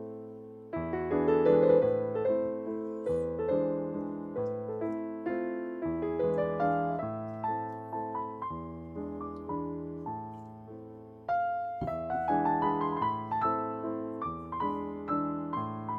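Background piano music: a gentle tune of struck notes that fade away, in a steady rhythm. It drops away briefly about eleven seconds in and comes back louder.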